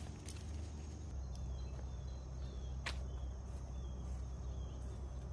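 Quiet outdoor ambience: a steady low rumble under a string of short, falling high chirps, about two or three a second, with one sharp click near the middle.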